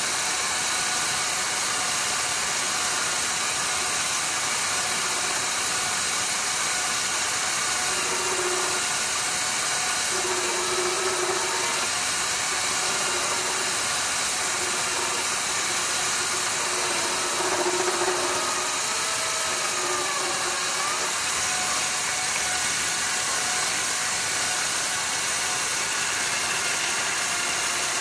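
Mini lathe running steadily with an even motor whine, turning a metal workpiece, with short spells of a stronger hum as the tool works the part.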